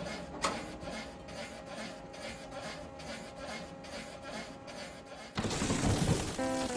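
Printing press running in the background with a quick, regular mechanical clatter. About five seconds in, a louder burst of noise breaks in, and held music notes begin near the end.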